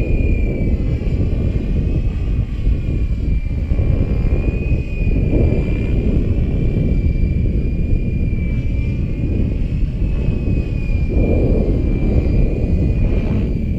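Wind buffeting the microphone, with the high, steady whine of a Gaui X5 electric RC helicopter's motor and rotor in flight overhead; the whine's pitch wavers slightly as the helicopter manoeuvres.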